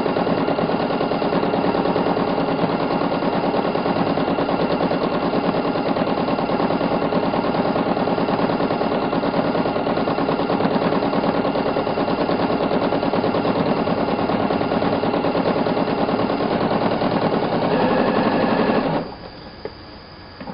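Elna 6600 sewing machine running fast for free-motion quilting, its needle stitching in a rapid, steady clatter; it stops about a second and a half before the end.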